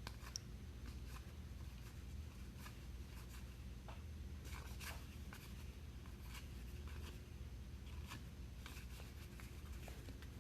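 Baseball cards being flipped through and handled, giving faint, scattered ticks and soft rustles over a steady low room hum.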